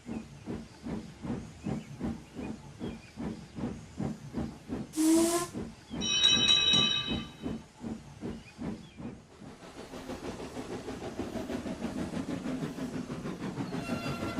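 Steam locomotive puffing at about two exhaust beats a second. A short burst of steam hiss comes about five seconds in, then the chime whistle sounds for about a second and a half. After that the beats come faster and blend into a steady running rumble, and a faint whistle tone rises near the end.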